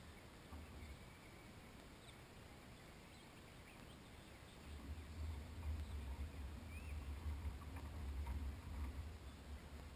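Low, gusty wind rumble on the action camera's microphone, building about halfway through and easing near the end, with a few faint high chirps above it.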